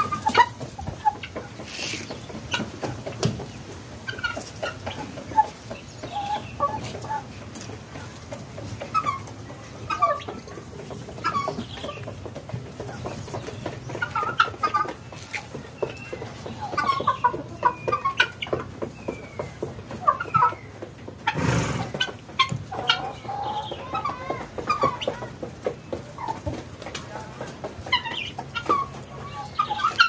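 A flock of farmyard fowl, with helmeted guinea fowl feeding on the ground, giving short clucking calls scattered throughout. There is one brief loud thump about 21 seconds in.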